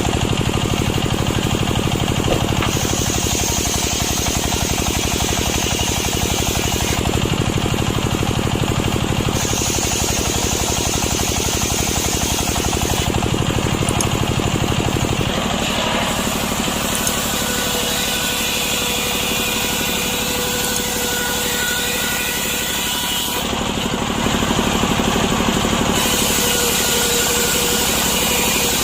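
Two-stroke chainsaw running continuously and cutting wet, freshly felled wood lengthwise. Its tone changes every few seconds as the load on the engine varies.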